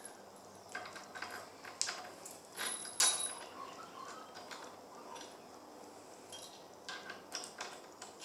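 Small steel bolts clinking and tapping against each other and the jaws of a small metal vise as they are handled and slid into place. The loudest clink, about three seconds in, rings briefly.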